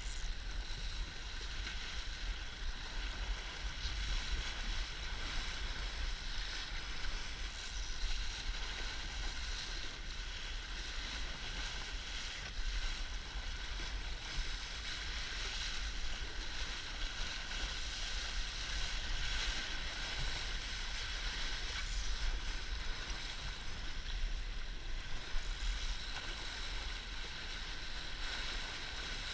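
Laser sailing dinghy under way in a 15–20 knot wind: water rushing along the hull, with a steady low wind rumble on the camera's microphone.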